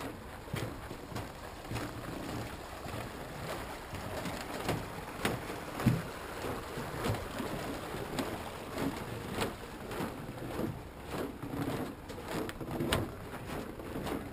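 Footsteps on snow-covered wooden dock boards at a steady walking pace, roughly two steps a second, under a low, uneven rumble; one step about six seconds in lands harder than the rest.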